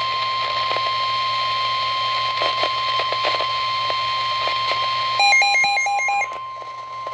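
NOAA Weather Radio 1050 Hz warning alert tone: one steady high-pitched tone held throughout, over radio static and hum. It signals that an emergency alert message is about to be broadcast. About five seconds in, a quick run of about five short beeps at a lower pitch overlaps it for about a second.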